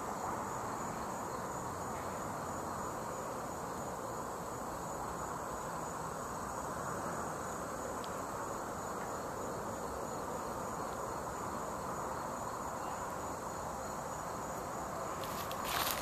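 Steady chorus of insects, a high finely pulsing trill, over an even background hiss. Near the end, footsteps begin crunching through dry leaf litter.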